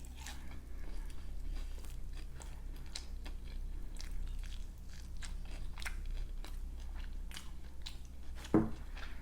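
Close-miked chewing of crispy fried food, with many small crunches throughout. There is one louder thump near the end.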